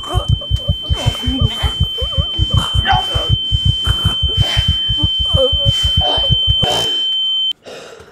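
Film sound-design effect: a steady high-pitched ringing tone, like ringing ears, over a fast low thumping pulse of about six beats a second. The thumping stops a little before the end, and the ringing cuts off suddenly just after.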